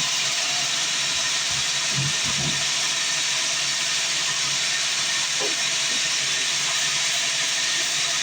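Band sawmill running with a steady high hiss and a faint low hum underneath.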